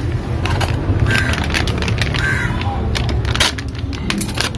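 Plastic packaging crinkling and crackling in the hands as a new timing-chain pad is unwrapped, with many short crackles over a steady low rumble.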